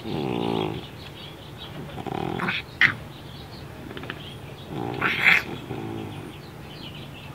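A cat snorting and grunting in pig-like bursts, about four times, sounds that come from her breathing problems. A sharp click comes a little before three seconds in.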